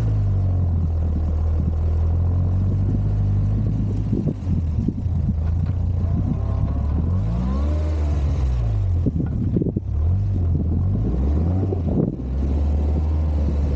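Four-wheel-drive vehicle's engine running with a steady low hum, its pitch rising and falling several times from about six to eleven seconds in as the throttle is worked.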